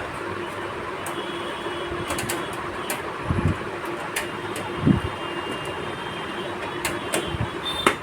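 Screws being driven to fasten a power supply into a metal PC cabinet: scattered small clicks and metal taps, with two louder knocks about three and a half and five seconds in, over a steady background hum.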